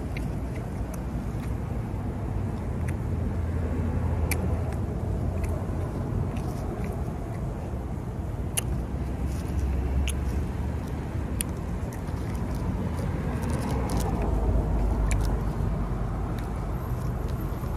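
Steady low rumble of road traffic, swelling a few times as vehicles pass, with scattered small clicks of chewing and handling food.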